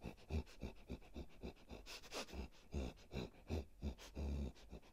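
A person imitating a bear sniffing and panting: faint, quick, breathy sniffs about four or five a second, with a longer, stronger breath about four seconds in.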